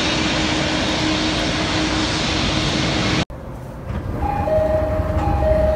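Jet airliner engines running with a steady roar that cuts off abruptly about three seconds in. Then a train's door chime starts: a two-note high-low ding-dong, repeating.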